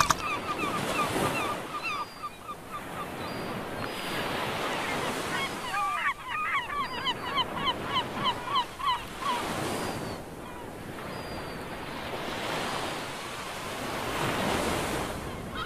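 Beach ambience: surf washing in and out in slow swells, with gulls calling in runs of short, repeated cries, the busiest run near the middle.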